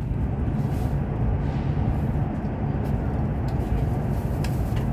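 Steady rumble of a CR400BF-Z high-speed train at speed, heard inside the passenger cabin, with a few faint light clicks.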